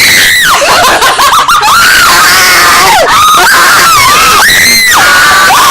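People screaming in fright, long high shrieks rising and falling one after another, loud enough to distort the microphone.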